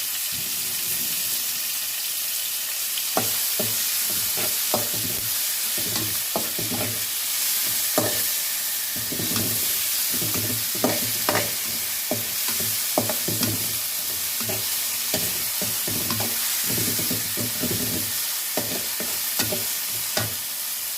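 Ginger, garlic, onions and tomatoes sizzling in hot oil while a spatula stirs and scrapes against the pan. The sizzle is a steady hiss, broken by frequent short scrapes and knocks of the spatula.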